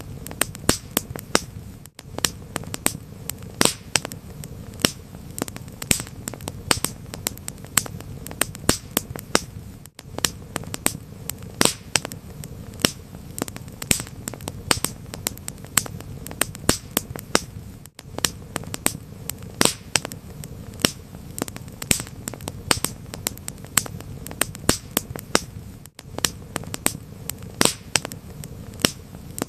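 Wood fire crackling: frequent sharp pops and snaps, several a second, over a steady low rumble of burning. The sound drops out very briefly about every eight seconds.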